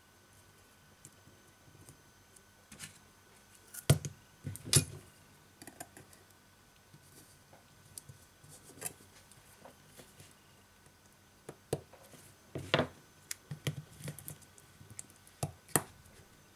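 Scattered clicks, taps and light scraping of hands and tweezers handling the parts of an opened BQ Aquaris E6 smartphone during a display replacement: cables, metal plate and battery being pressed and set into the housing. A few louder knocks stand out among the small clicks.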